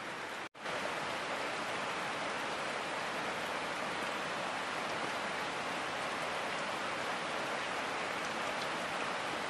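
Steady rain falling on dense rainforest foliage, with a brief gap about half a second in.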